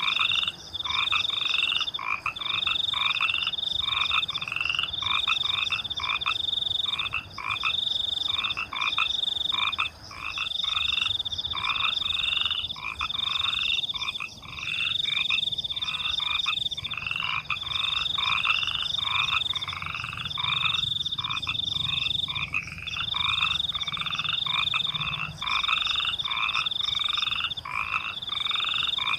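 Frogs croaking at night, about two calls a second, over a continuous high trill of crickets that breaks off briefly now and then.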